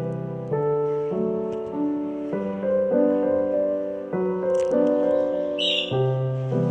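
Background piano music: a slow, gentle melody of held notes that change about once a second.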